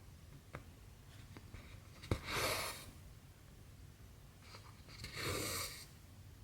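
Cotton embroidery thread being pulled through cross-stitch fabric: two soft swishes under a second long, the first just after a sharp click about two seconds in, with faint needle ticks between.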